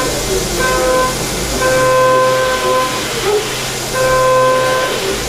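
CNC machining centre running, a steady hum and hiss under a whining tone that comes and goes in stretches of about a second as the cutter engages and leaves the work.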